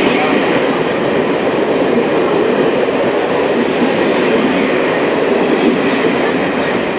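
Coaches of an Indian Railways ICF-rake express train running through the station at speed: a steady, loud rush and rattle of wheels on rail and passing carriages.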